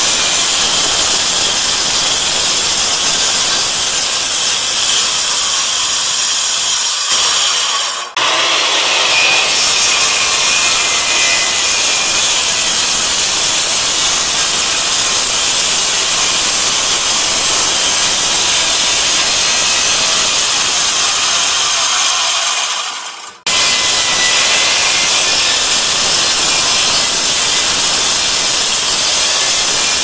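Makita circular saw cutting through a wood subfloor, the blade running steadily in the wood. The sound briefly drops away twice, about 8 and 23 seconds in, then resumes.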